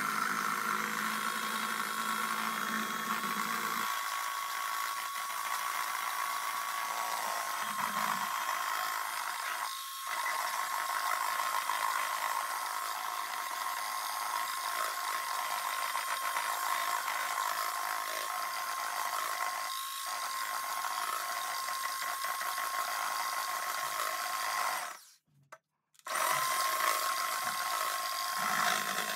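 Cheap electric hand mixer whisking egg whites toward stiff peaks: a steady small-motor whine with a whirring hiss. It cuts out for about a second near the end, then runs again.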